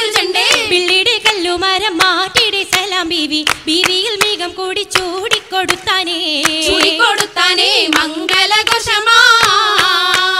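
Oppana: a Mappila song sung with a wavering, ornamented voice, over a running rhythm of sharp hand claps.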